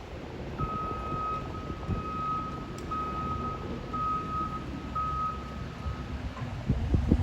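A construction vehicle's backup alarm beeping about once a second, six or so beeps that fade out, over the steady rumble of a diesel engine. A few heavy knocks near the end.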